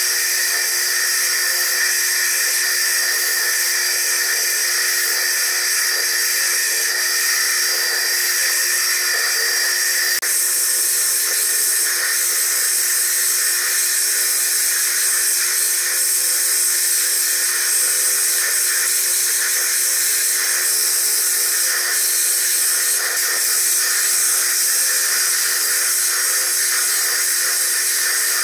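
Foredom bench lathe spinning a wet core drill against a hard stone blank: a steady high-pitched whine and grinding, played at triple speed, with a slight shift in tone about ten seconds in.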